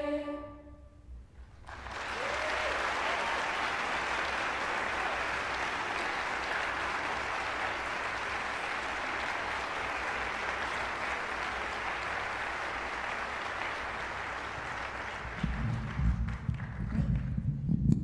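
A choir's final chord dies away in the hall's reverberation, then audience applause sets in at about two seconds and lasts for about thirteen seconds. Near the end, as the applause thins, there are a few loud low thumps.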